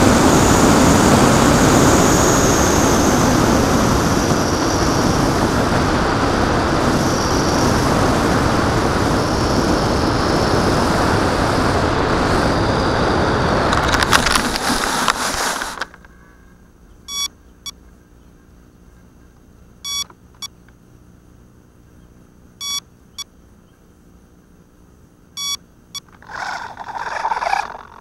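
Electric motor and propeller of an FPV Penguin model plane running under wind rush on the onboard camera, with a wavering high whine; the sound cuts off suddenly about 16 seconds in as the plane comes down. Short electronic beeps from the landed plane follow, a pair roughly every three seconds, with a brief rustle near the end.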